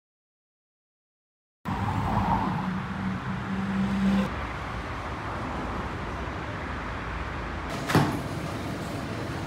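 Road traffic starting about a second and a half in: cars passing, with a steady engine hum that is loudest over the first few seconds, then settling to an even traffic noise. A single sharp knock comes near the end.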